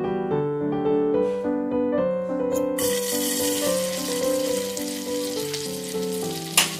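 Butter sizzling as it melts in a hot aluminium wok, the sizzle starting about three seconds in, over steady background keyboard music. A single sharp click sounds near the end.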